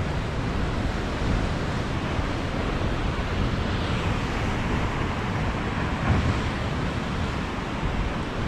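Ocean surf breaking and foaming against the base of a rocky sea cliff: a steady rushing wash of water that swells briefly about six seconds in.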